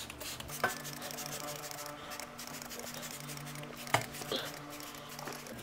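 Trigger spray bottle spritzing ceramic coating onto a snow blower's auger housing: faint short hisses over a steady low hum, with a small click early and one sharp tap about four seconds in.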